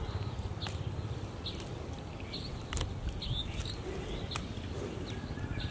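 Small live fish flapping and pattering against a bamboo trap and dropping into a pot as the catch is tipped out: scattered sharp clicks over a low rumble, with a few faint short bird chirps.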